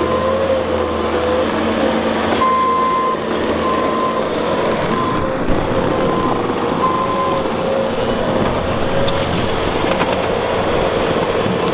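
Compact track loader's diesel engine running steadily under load as it drives and pushes dirt, with a short repeated beeping tone for a few seconds in the middle.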